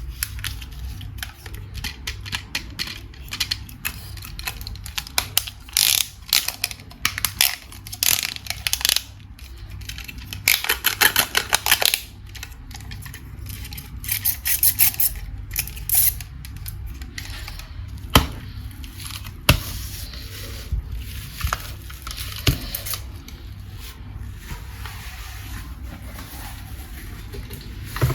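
Toys and packaging being handled during an unboxing: irregular rustling, scraping and sharp clicks, busiest in the first half, with a few lone clicks later.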